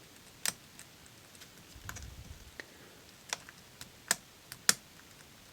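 Lock pick and tension tool working the pins of a Robur safe deposit box lock: a handful of sharp, separate metal clicks, the loudest about four and a half seconds in, with a soft low handling rumble around the two-second mark.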